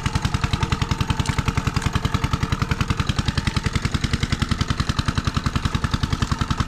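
Small engine running steadily at an even speed, with a rapid chugging of about ten beats a second.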